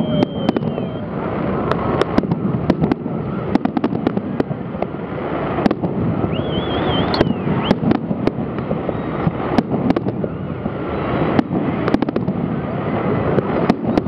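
Aerial fireworks display: shells bursting in many sharp, irregularly spaced bangs over a continuous crackle from glittering gold stars.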